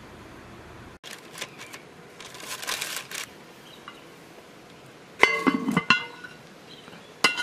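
Baking paper rustling, then the cast-iron lid of a Dutch oven clanks down onto the pot with a metallic ring about five seconds in. The metal lid lifter clinks against it near the end.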